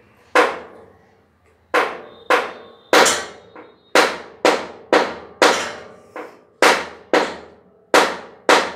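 A series of loud, sharp knocks, about a dozen at an uneven pace of one to two a second, each ringing on briefly after the hit, like hammering.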